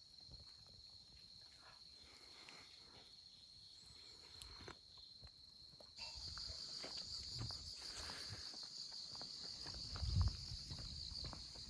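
Insects, likely crickets, trilling steadily in a high even tone, louder and pulsing from about halfway. Faint scattered clicks and a low thump come near the end.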